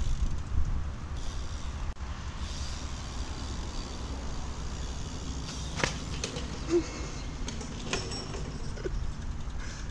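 BMX tyres rolling on asphalt under a steady low rumble on the microphone, with a few sharp knocks in the second half.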